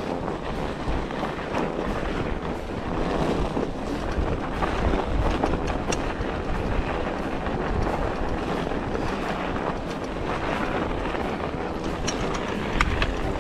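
Rumble and rattle of a bike rolling over a rough snowy trail, with wind on the microphone and scattered clicks from the bike.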